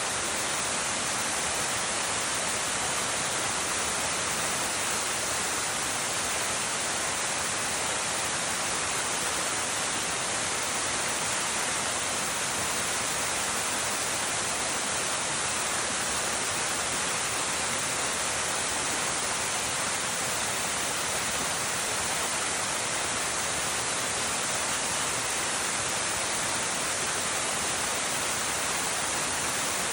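Waterfall rushing: a steady, unbroken hiss of falling water with no change in level.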